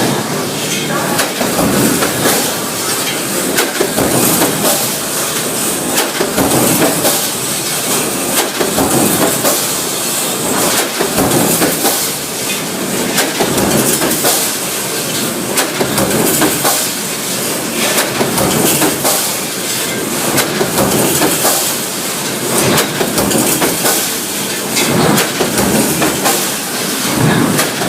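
Factory machinery running continuously, with a steady hiss under frequent quick metallic knocks and clanks.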